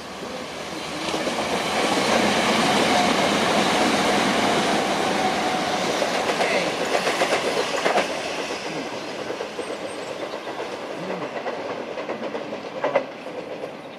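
Southeastern Class 375 Electrostar electric multiple unit passing at speed on the fast line. The wheels rumble and clatter over the rail joints and pointwork, swelling in as it approaches and fading as it draws away, with one sharp knock near the end.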